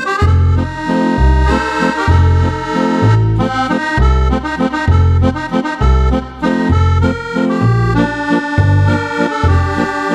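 Roland piano-key digital accordion playing an up-tempo tune: a right-hand melody over a steady left-hand bass that alternates between low notes about every two-thirds of a second, with chords between them.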